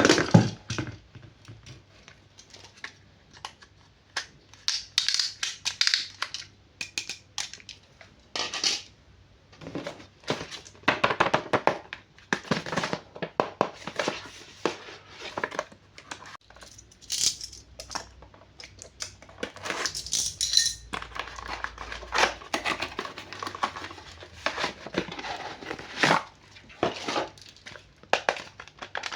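Plastic toy packaging crinkling and rustling in irregular spells, with scattered clicks and knocks as the toys are handled.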